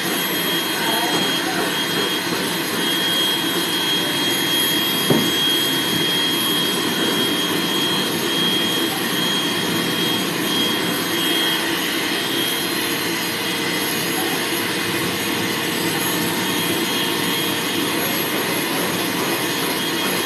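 Dog-grooming dryer blowing steadily: a constant rush of air with a thin high whine over it. There is a single short tick about five seconds in.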